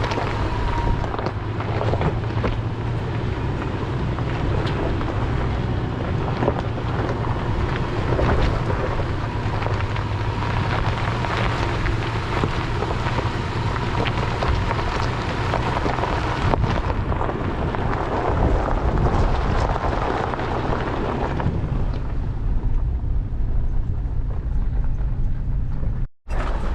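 Toyota 4Runner driving slowly over a rough, rocky dirt road: a steady engine hum under constant crunching, knocking and rattling. The sound cuts out for a moment near the end.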